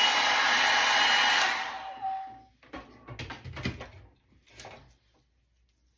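Hand-held hair dryer blowing loudly, switched off about a second and a half in and winding down. After it, a few soft clicks and rustles of handling.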